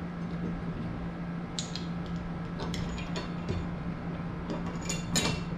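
Scattered light metal clinks and ticks as a bolt and washers are fitted through a hanging steel bar and a wall-mounted steel squat-rack bracket, with a few more near the end, over a steady low hum.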